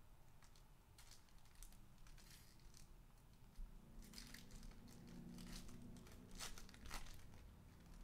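Foil wrapper of a trading-card pack torn open by hand, faintly crinkling and tearing in several short rustles, about a second in, around four seconds and near seven seconds.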